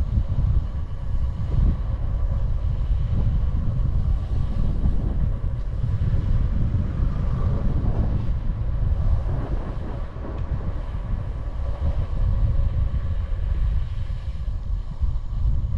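Steady low rumble of wind buffeting the microphone while riding a bicycle downhill.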